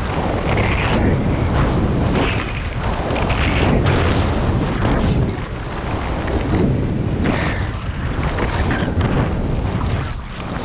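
Wind rushing over a skier's body-worn camera microphone during a downhill run, mixed with skis scraping over packed snow. The noise swells and fades every second or two, as the turns come and go.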